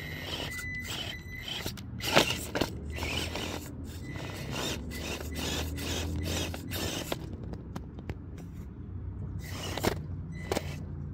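Traxxas TRX-4M mini crawler, fitted with Injora UD gears, crawling over rock: a low drivetrain hum under repeated scrapes and clicks of tyres and chassis on stone. There is a sharp knock about two seconds in and another near the end.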